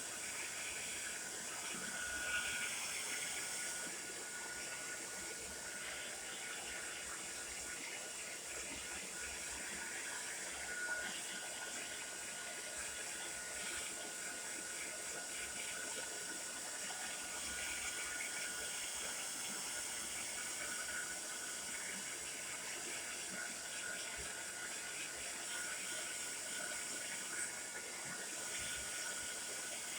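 TRESemmé Salon Smooth Professional hair dryer running steadily: an even rush of blown air, mostly high hiss, with a faint steady whine underneath.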